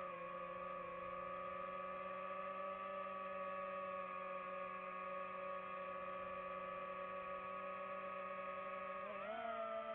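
Background music: a held, sustained chord of steady tones that shifts to a slightly higher chord about nine seconds in.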